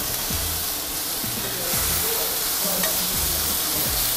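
Cubes of beef fillet searing in a pan over high heat, a steady sizzle. The meat has just been turned over after browning, to seal it.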